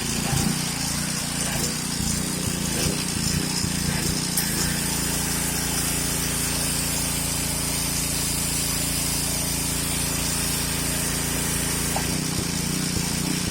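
Gas engine of a 3000 PSI, 6 horsepower Kärcher pressure washer running steadily, with a high hiss of water spraying under pressure.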